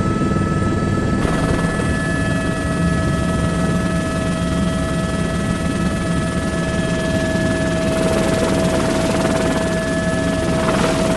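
Helicopter in flight, heard from inside the cabin: a steady, loud rotor and engine noise with fast low pulsing from the blades and several steady whining tones.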